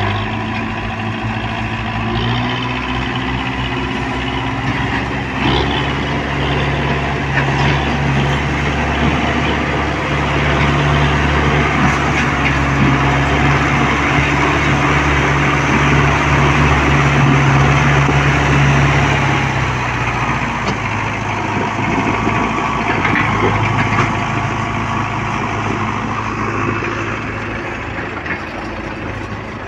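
Diesel tractor engine working under load, hauling a heavily loaded sugarcane trailer. The engine note climbs a little at first, holds steady and grows louder, then drops lower about two-thirds of the way through and fades.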